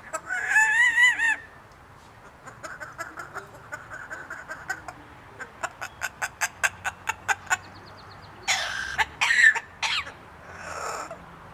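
Hybrid yellow-naped × yellow-shouldered amazon parrot vocalising: a loud wavering call at the start, then a run of short clicks that speeds up to about five a second, then a couple of loud, harsh cough-like bursts and a fainter one near the end.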